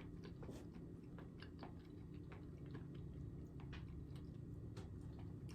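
Faint close-miked chewing with many small, irregular wet mouth clicks, over a low steady hum.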